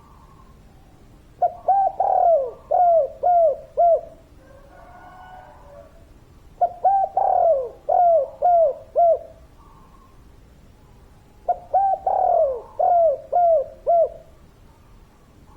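Spotted dove (tekukur) singing its cooing song three times, about five seconds apart. Each phrase is a quick run of six or seven short, rounded coos.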